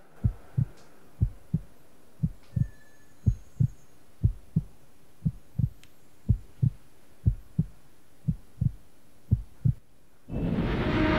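Heartbeat sound effect: a steady lub-dub, ten double thumps about one second apart. Near the end a loud rushing noise comes in and grows louder.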